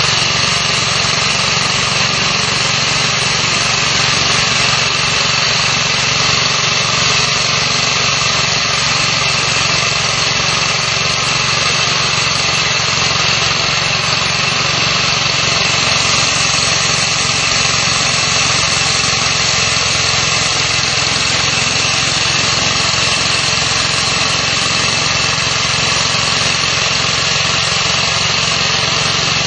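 Concrete core drilling machine running steadily, its motor turning the core barrel as it is fed down into a concrete block.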